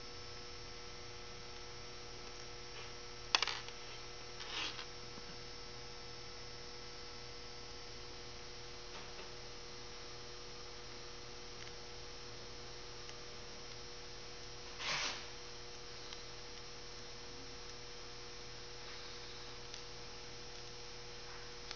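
Steady electrical hum, with a sharp click about three seconds in, a fainter one a second later, and a brief rustle around fifteen seconds: handling of the new metal cable and cable clamp.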